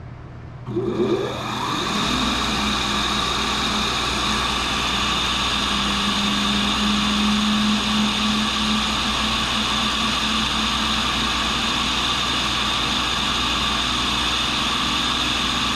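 80-year-old tool and cutter grinder switched on: its motor and diamond cup wheel spin up, the pitch rising over about a second, then run at a steady whine.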